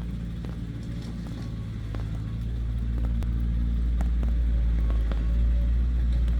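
Heavy diesel engine of construction machinery running steadily under a low rumble, with scattered light clicks and knocks. It grows a little louder from about two seconds in.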